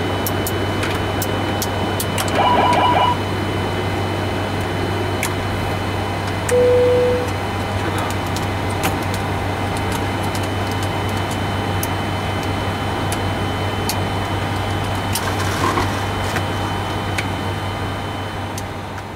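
Steady flight-deck noise in a Boeing 747-400ERF freighter cockpit: a constant low hum under a hiss, with scattered light clicks. A short beep of several tones sounds about two and a half seconds in, and a short single-tone beep about six and a half seconds in.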